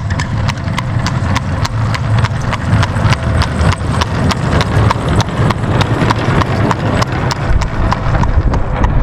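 Horse hooves clip-clopping in an even rhythm, about four or five hoofbeats a second, over a steady low rumble.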